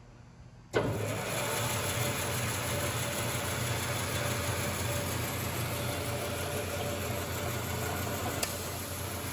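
Grob 4V-18 vertical bandsaw switched on about a second in, its motor and drive then running steadily with a low hum and a broad whirring noise. A brief click near the end.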